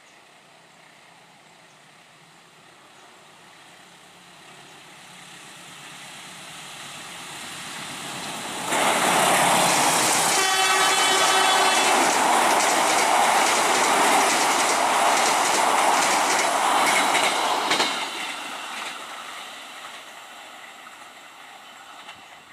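Diesel-hauled passenger train approaching and passing close by, sounding its horn once for about a second and a half, about ten seconds in. The carriages then rumble and clack over the rail joints of a steel bridge, and the sound fades as the train moves away.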